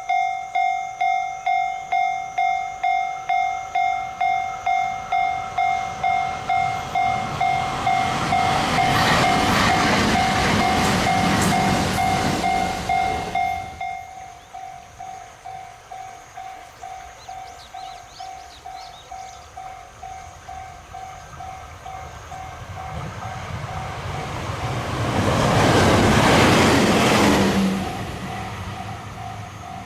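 Japanese level-crossing warning bell ringing about twice a second while a train passes over the crossing in the first half. The bell then drops suddenly in loudness and keeps ringing softer, and a second train passes near the end.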